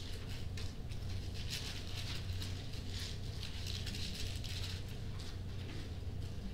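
Bible pages being leafed through, a run of soft, irregular rustles and flicks of thin paper, over a steady low hum.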